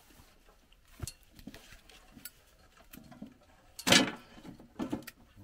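Scattered clicks and metallic clinks from cables and fittings being handled on a metal mast, with the loudest clank about four seconds in.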